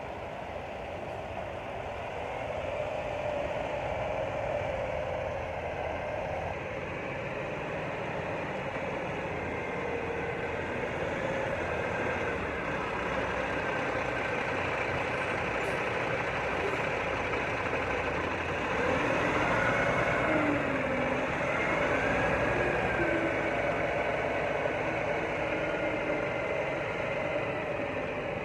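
Semi tractor's diesel engine running at low speed while the truck manoeuvres, growing louder toward the middle as it comes close, with some rising and falling whines.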